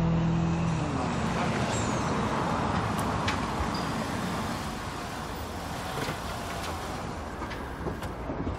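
A car driving along a city street and slowing as it pulls up, its engine and tyre noise steady and gradually growing quieter. Held music tones glide down and end about a second in.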